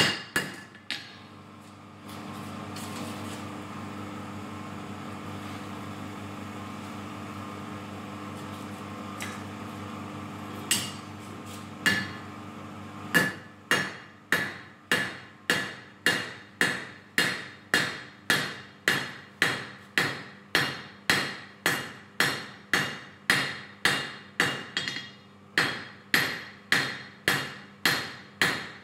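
Hand hammer striking glowing steel on an anvil while forging a knife blade: a few blows at the start, then about eleven seconds of steady hum with no strikes. From about 13 seconds in, hammering resumes at a steady rhythm of about two ringing blows a second.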